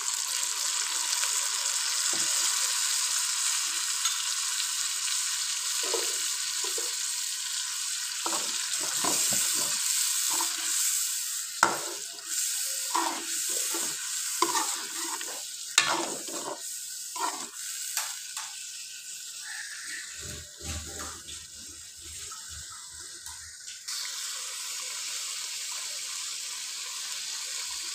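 Chicken and freshly added tomato juice sizzling in hot oil in a karahi, with a spatula scraping and knocking against the pan as it is stirred. The sizzle is strongest at first, eases while the knocks come through the middle, and steadies again near the end.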